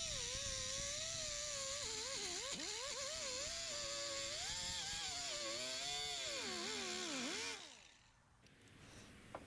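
A cutoff wheel cutting the sheet steel of a car's quarter panel: a high whine whose pitch sags and recovers as the disc bites under load. It winds down and stops about seven and a half seconds in.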